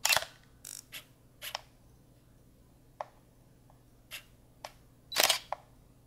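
Digital SLR camera's shutter and mirror clicking: a loud shot right at the start and another about five seconds in, with several smaller, sharper clicks between.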